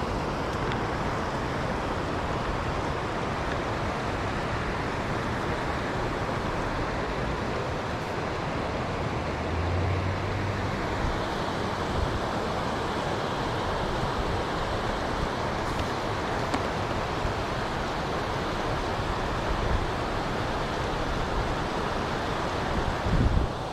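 Flowing river water rushing steadily, with a few brief low thumps on the microphone.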